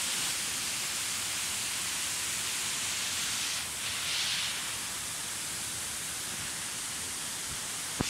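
Steady rushing hiss of flowing stream water, swelling briefly about four seconds in.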